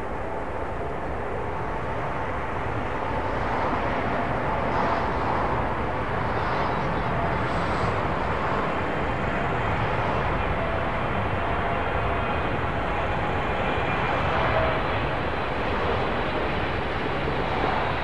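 Jet noise from a Boeing 777-300ER's twin GE90 turbofans on final approach to landing, growing louder a few seconds in as the airliner nears, then holding steady with a faint whine under the rush.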